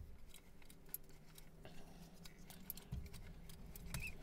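Film-advance crank of a Rolleiflex twin-lens reflex being wound, giving a run of faint, irregular clicks as the roll film is wound on to the first frame.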